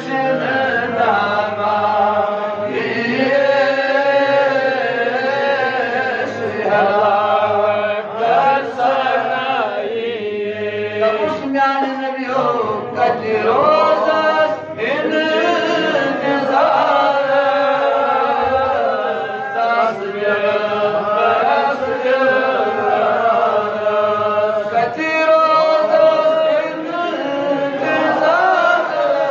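A man's solo voice chanting a melodic religious recitation through a microphone and sound system, in long held notes that bend and waver, with short breaks between phrases.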